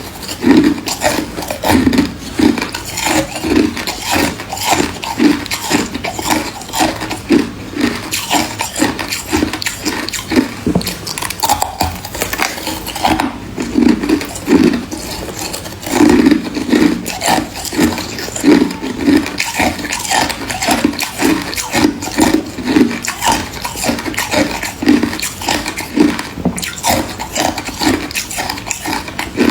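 Close-miked chewing of freezer frost and ice: steady crunching bites at about two a second.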